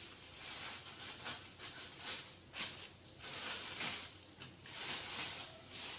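Faint rustling and handling noise from parts being moved about by hand, in short irregular bursts.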